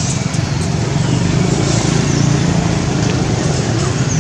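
Steady low rumble of a motor vehicle engine running nearby.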